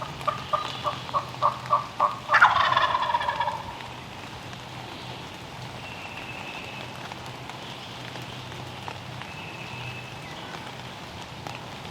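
A run of about ten short turkey yelps, then a wild turkey gobbler gobbling once, loud and rattling, for about a second and a half. After that only the steady patter of light rain.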